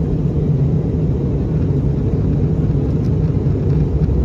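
Steady low rumble of an Airbus A320 in flight, heard inside the passenger cabin: engine and airflow noise, even throughout with no change.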